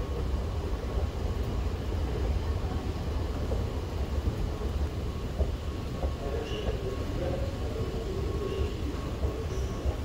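Underground metro station ambience heard from a moving escalator: a steady low rumble with a faint constant hum.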